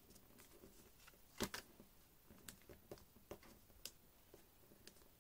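Faint, scattered paper crackles and clicks of origami paper being folded and creased by hand, with the loudest rustle about one and a half seconds in.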